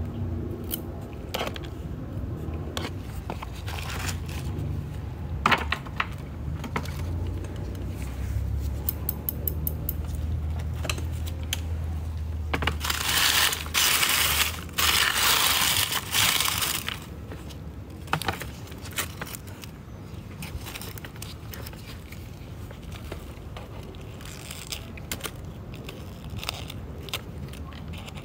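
Dry, withered succulent leaves being stripped off by hand: irregular crackling, snapping and scraping, with a louder stretch of rustling a little before the middle.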